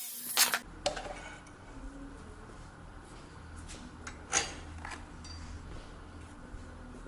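Rasping or grinding on metal stops about half a second in. A few light clinks and knocks of handled metal follow, the loudest about four seconds in, over a low steady hum.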